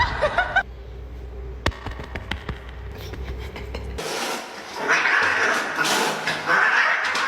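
A cat vocalising, with an abrupt cut about four seconds in to a louder, noisier stretch.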